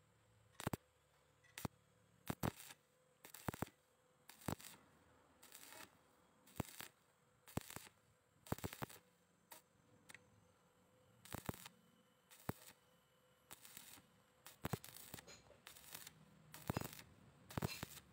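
Stick-welding arc crackling in short bursts about once a second, the electrode struck and broken again and again as the bead is laid in steps along the joint of the steel tube.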